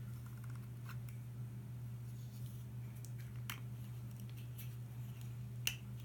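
Small pink plastic toy box being handled and opened in the hands, giving a few light plastic clicks and snaps, the sharpest near the end. A steady low hum runs underneath.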